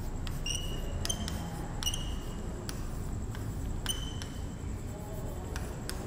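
Chalk writing on a blackboard: light taps of the chalk with several brief high squeaks as the strokes are drawn.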